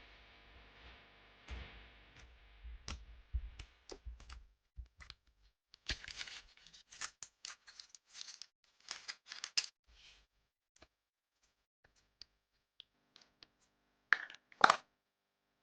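Foam clay slime being pressed and stretched by hand, giving a run of small crackles and clicks, thickest in the middle, then two louder pops near the end.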